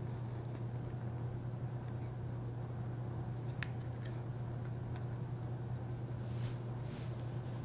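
A steady low hum, with faint scrapes and a click of a fillet knife cutting through a deer's neck.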